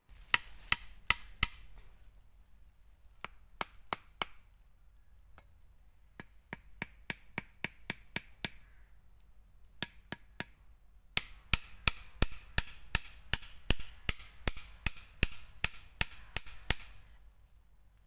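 A machete striking the top of a thin wooden stake, driving it into the soil: a quick cluster of sharp knocks at the start, scattered single blows, then an even run of about three blows a second for several seconds near the end.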